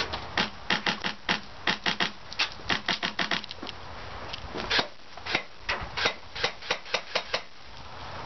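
Airsoft rifle fired in a quick, irregular string of single shots, each a sharp click, with a short pause about halfway through.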